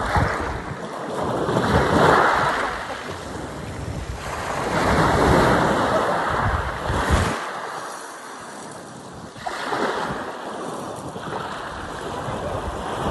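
Sea waves breaking and washing up a sandy beach, the surf swelling and fading about every three to four seconds, with wind rumbling on the microphone.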